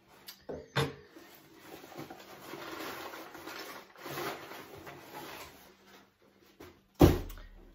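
Cardboard box and paper packing rustling as hands rummage through them, with a couple of light clicks about a second in. About seven seconds in, a single sharp thump, the loudest sound, as something is knocked or set down on the table.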